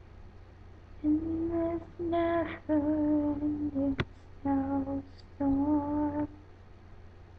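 A girl's voice singing a slow, wordless tune without accompaniment: five held notes from about a second in. A sharp click about four seconds in.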